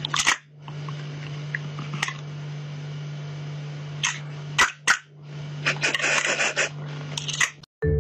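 Sharp plastic clicks from a toy dinosaur lollipop holder snapping at a cat, over a steady low hum; about six seconds in, a second of rough rustling noise.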